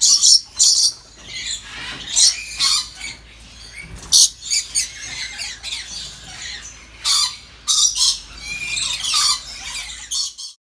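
Lories giving repeated short, high, rasping calls in irregular bursts.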